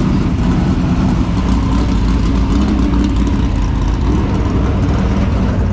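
Dirt super late model race car's V8 engine running at low speed as the car rolls out of the pits: a loud, steady, deep rumble.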